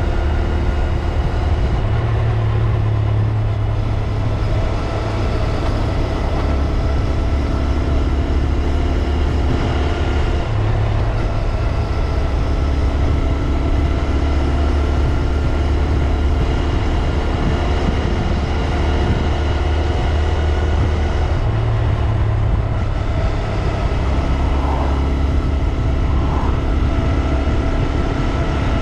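2022 Honda Grom's single-cylinder engine running steadily, with several held tones above its low note.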